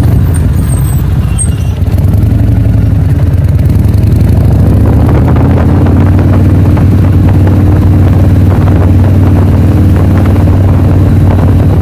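Motorcycle engine running loud and steady at an even speed.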